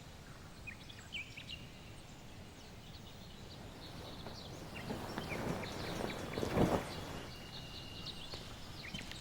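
Countryside ambience: small birds chirping over a low background hiss. Past the middle a broad swell of noise builds, peaks and fades away.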